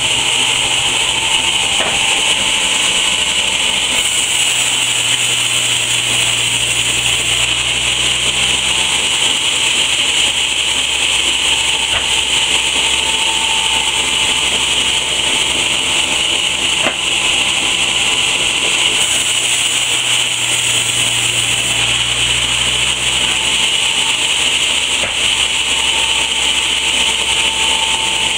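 Large band saw running continuously as its blade cuts through a log, a steady loud noise with a strong high hiss; the lower hum shifts a few times as the log is fed through.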